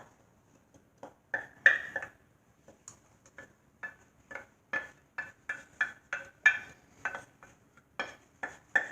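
A spoon clinking and scraping against a bowl in a run of short strokes, sparse at first and then about two to three a second, as coconut is added to rice-bread batter.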